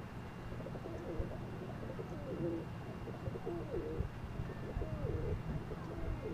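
Domestic pigeons cooing in a loft: a series of low, wavering coos starting about half a second in and repeating through the rest.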